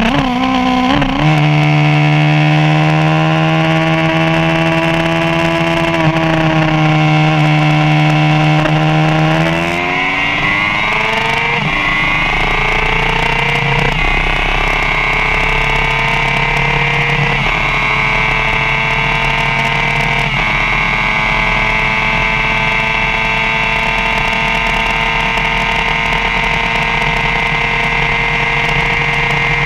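2015 BMW S1000RR's inline-four engine at full throttle, its pitch climbing steadily. It drops sharply at an upshift about a third of the way in, steps a few more times, then holds steady in sixth gear at its top speed of about 186 mph, with wind rushing past.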